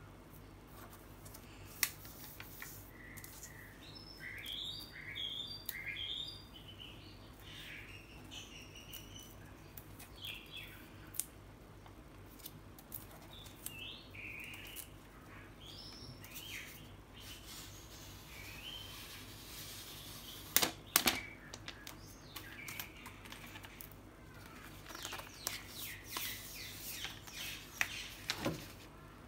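Clear protective plastic film being peeled off a new iPad, crinkling and crackling in scattered bursts. A few sharp clicks cut in, the loudest cluster about two-thirds of the way through and another near the end.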